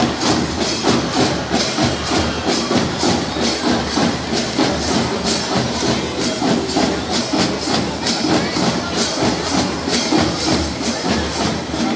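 Fanfarra marching band playing, percussion keeping a steady, even beat under the band's other instruments.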